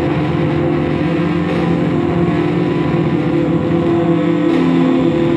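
Experimental industrial music: a dense, steady drone of several held tones over a rough low rumble.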